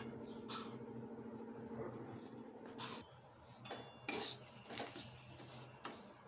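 A metal spatula scrapes and taps through dry semolina in an aluminium wok as it is stirred and roasted, the strokes coming mostly in the second half. A steady high-pitched pulsing trill runs behind it, and a low hum stops about halfway.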